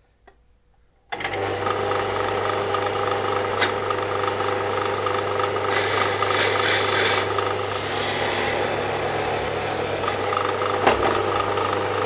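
A mill-drill starts up about a second in and runs steadily while a step drill bit cuts a half-inch hole through a sheet metal panel, with a harsher cutting noise for a second or so midway.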